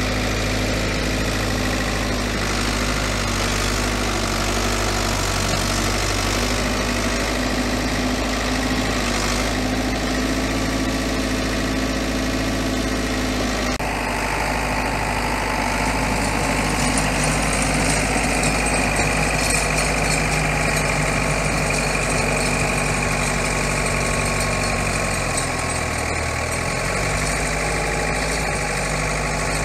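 Ford 7210 tractor's diesel engine running steadily while driving a rear PTO snowblower through snow. A steady higher whine joins about halfway. Near the end the engine note drops briefly under load and recovers.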